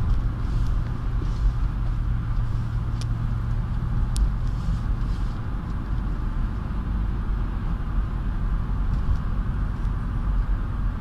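Steady engine and road noise inside the cabin of a Honda CR-V with a 2.0-litre engine running on LPG, cruising at about 2,000 rpm and 55 km/h. A low droning note fades out about halfway through.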